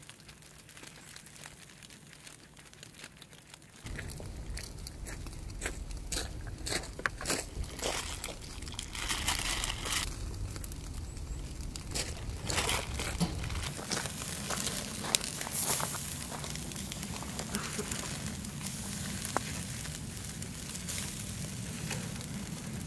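Beef steaks sizzling on a wire-mesh grill over glowing charcoal, with scattered sharp pops and crackles. A low rumble joins about four seconds in.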